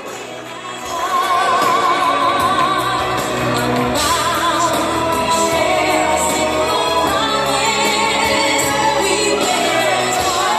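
Music with a singer holding long notes with vibrato over a steady accompaniment, starting up about a second in.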